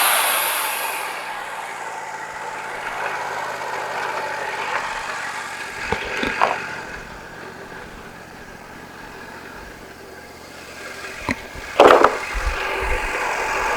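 Wood-Mizer LT40 sawmill running: the bandsaw cut dies away in the first second, then the mill's engine runs on more quietly, with a few sharp knocks about six seconds in and a loud clunk near the end.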